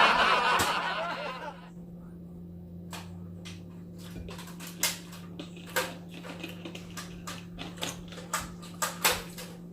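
Eating noises close to the microphone: scattered sharp clicks and smacks, a few louder ones around the middle and near the end, over a steady low hum. A voice trails off in the first second or two.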